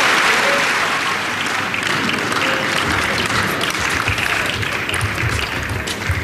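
Arena crowd applauding a won point, the applause thinning over the first few seconds. Near the end the sharp clicks of a table tennis ball in a rally begin.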